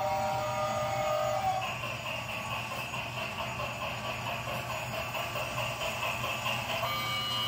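Battery-powered toy train running around its track, its small motor whirring steadily. Clear held tones sound over it in the first second and a half and again near the end.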